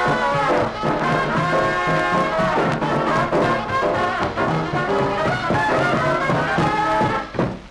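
Small Dixieland jazz band on a 1945 78 rpm record, with cornet, trombone and soprano saxophone over piano, string bass and drums, playing the closing bars of the tune. The band stops a little after seven seconds in, leaving a steady low rumble underneath.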